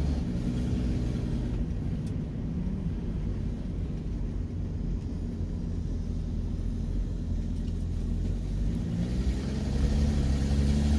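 1967 Ford Mustang's 200 cubic inch inline-six engine running at low speed, heard from inside the cabin, on its freshly rebuilt Holley 1940 one-barrel carburetor. It hums steadily and picks up louder near the end as the car accelerates.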